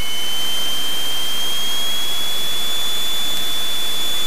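Cessna 172's engine and propeller heard from inside the cabin during the pre-takeoff run-up: a loud, steady rushing noise with a thin whine that creeps slightly higher in pitch.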